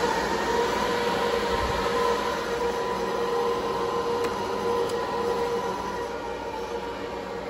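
Supermicro quad-GPU rack server's fans running just after power-on: a steady rush of air with a high-pitched whine on top. The whine is the squeal of one of the power-supply fans, which the owner calls deafening and treats as a faulty fan.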